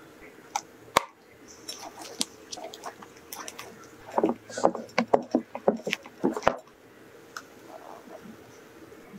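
Silicone spatula folding whipped meringue into chocolate cake batter in a glass bowl: soft wet squelches and scrapes against the glass. The strokes come quickest and loudest between about four and six and a half seconds in.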